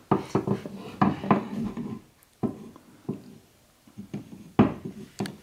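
Solid cherry stool parts knocking and scraping against each other and the wooden floor as they are handled and fitted together: a string of short wooden knocks, the sharpest about four and a half seconds in.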